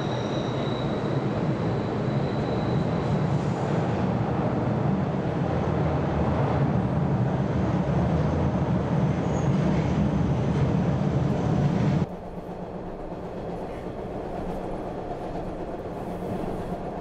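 Subway train rumbling loudly in the station, with a thin high squeal in the first few seconds. About twelve seconds in, it cuts abruptly to the quieter, steady rumble heard inside a moving subway car.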